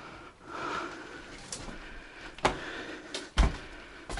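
Footsteps: a handful of dull thuds with sharp clicks, coming about every 0.7 s in the second half.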